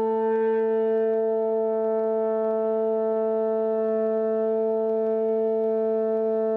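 French horn played open, with no valves pressed: one long, steady note on the written E, which sounds as the A below middle C. The tone holds steady in pitch and loudness throughout.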